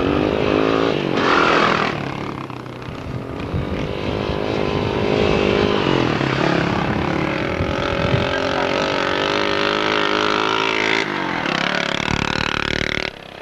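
Small off-road ATV engines revving hard as the quads ride past, their pitch rising and falling with the throttle; the sound drops away sharply near the end.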